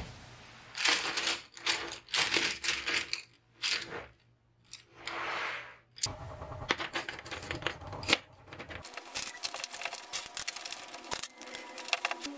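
Wooden coloured pencils rattling and clattering as a bundle of them is handled and packed into a clear cylinder: rustling clusters at first, then, from about six seconds in, many quick sharp clicks as the pencils knock against each other and the container.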